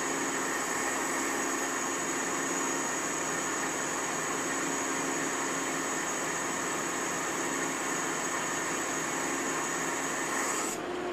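Steady drone of the boat's machinery, heard inside its cabin, with a thin high whine over it that cuts out near the end.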